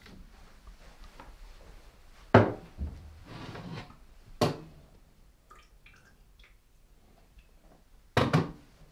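Kitchen handling sounds: three sudden clatters, about two, four and a half and eight seconds in, each ringing briefly, with a short splashing or pouring noise after the first and quiet rustling in between.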